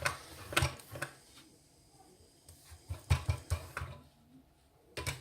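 Scattered light clicks and knocks from small tools and parts being handled on a workbench: a few in the first second, a cluster around the middle, and more near the end, with quiet gaps between.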